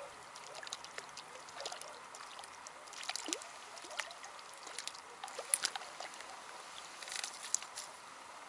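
Faint splashing and trickling water as a small hooked roach is drawn through the shallows to the bank on a float rod, with scattered light clicks and ticks.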